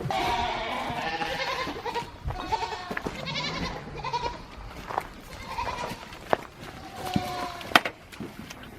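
Goats bleating, a run of repeated, overlapping calls, with a few sharp knocks, the loudest near the end.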